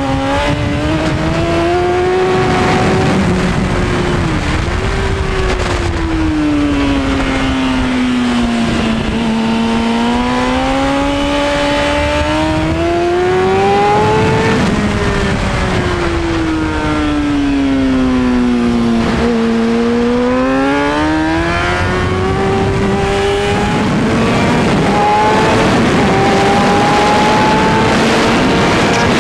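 2003 Kawasaki Ninja ZX-6R 636's inline-four engine running hard on the track, heard from on board over a steady wind rush. Its pitch twice sinks low and climbs back in long smooth sweeps, then climbs once more near the end.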